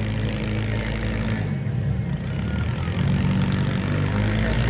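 Demolition derby cars' engines running steadily, getting a little louder about three seconds in.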